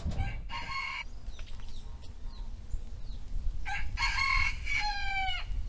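Rooster crowing: a brief call about half a second in, then a long crow from near four seconds in that falls in pitch as it ends.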